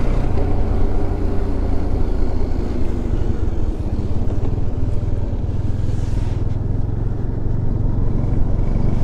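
Bajaj Dominar 400's single-cylinder engine running steadily under way, with a rush of wind and road noise.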